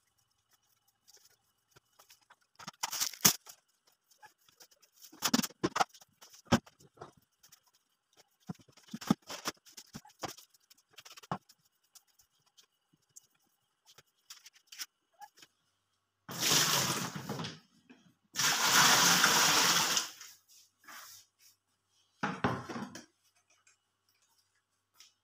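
Floor sweeping with a broom and plastic dustpan: scattered light knocks and scrapes for the first half. Later come two rushes of water a second or two long, and a shorter one near the end.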